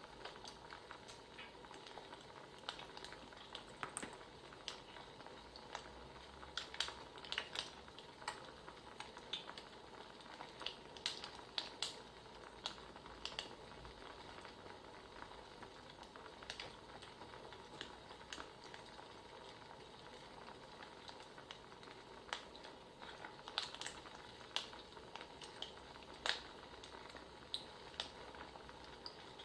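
Wood fire crackling: a soft steady hiss with irregular sharp pops and snaps.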